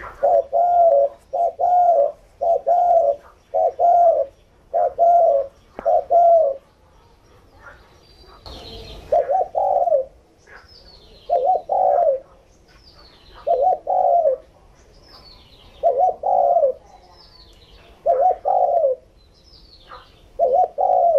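Caged male spotted dove cooing vigorously, a run of short low coos repeated about once a second, then after a brief pause spaced out to about one every two seconds.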